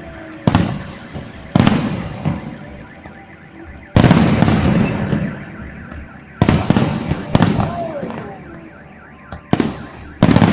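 Aerial fireworks shells bursting: about seven loud booms at uneven intervals, each rolling away in a long echoing rumble.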